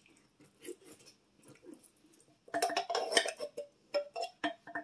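A wooden spoon scrapes and knocks inside a metal can as condensed cream of celery soup is emptied into a slow cooker crock. Faint scraping at first, a busy run of clatter about halfway through, then a few sharp knocks near the end.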